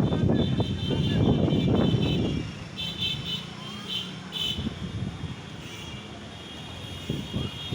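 Strong storm wind gusting and buffeting the microphone with a low rumble, easing off about two and a half seconds in.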